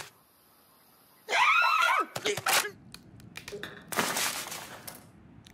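Cartoon bird's squawking cry with a wobbling pitch, about a second in, followed by a run of small knocks and clicks and then a short rushing, scraping noise near the end.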